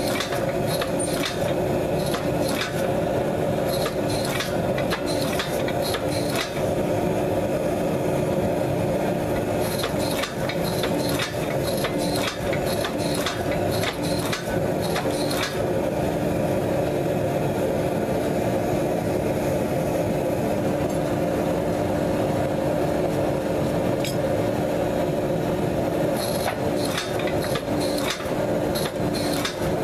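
Homemade hydraulic forging press running steadily with a constant hum while it squeezes a hot damascus steel billet. Spells of sharp crackling and ticking come and go over it: in the first few seconds, again about ten seconds in, and near the end.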